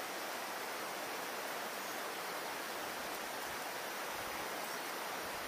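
Steady rushing of river water running over rocks.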